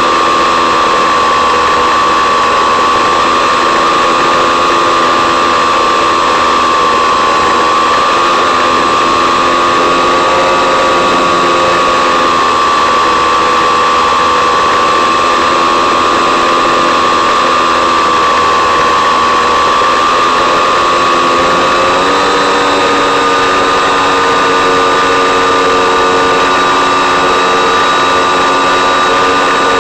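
Electric motor and propeller of an FPV model plane whining steadily at low power through the onboard microphone, the pitch wavering slowly. About 22 seconds in the pitch steps up slightly as the throttle is opened a little, the current draw rising from about 2.5 to 3.5 A.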